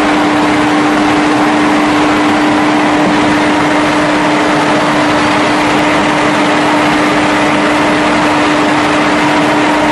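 Veneer-mill machinery running: a loud, steady drone with one constant hum over an even mechanical noise.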